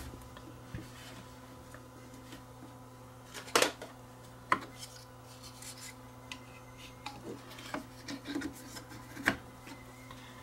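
Head cover of an Akai 4000DS Mk2 reel-to-reel tape deck being handled and fitted back over the tape heads: scattered light clicks, taps and rubbing, with a few sharper knocks, the strongest near the end.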